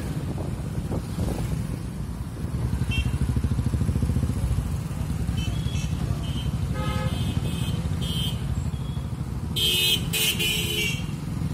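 Motorcycle engine running steadily in busy road traffic, with vehicle horns honking several times in the second half, loudest about ten seconds in.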